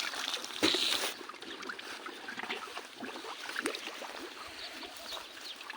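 Goats feeding on cut grass: scattered rustling, chewing and small knocks, with a short rush of noise about a second in.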